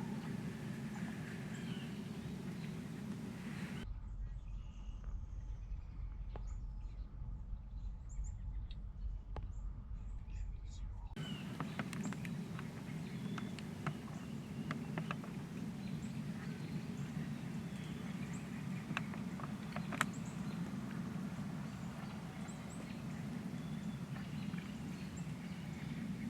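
Outdoor woodland ambience: a steady low background rumble with faint scattered bird chirps and occasional small clicks or rustles, one sharper tick about 20 seconds in.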